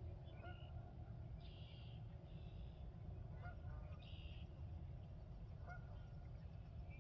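Geese honking faintly a few times among a songbird's repeated short buzzy calls, over a steady low background rumble.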